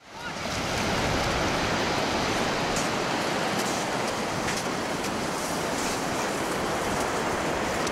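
Steady rushing noise of surf on a sandy beach, fading in quickly at the start, with a few faint clicks.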